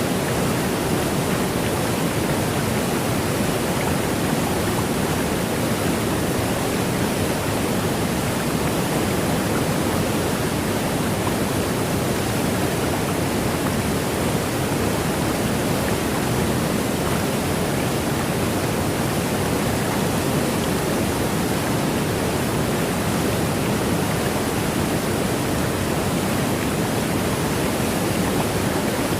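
Steady rain falling, an unbroken, even hiss that does not let up.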